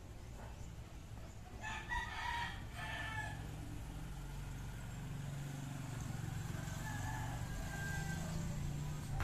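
A rooster crows about two seconds in, a call of a second and a half, and a fainter crow follows later, over a steady low rumble.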